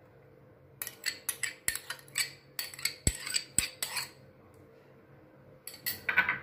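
Steel spoons clinking and scraping against bowls while scooping out and dropping in mayonnaise. A quick run of clinks and scrapes starts about a second in, then pauses, and a few more come near the end.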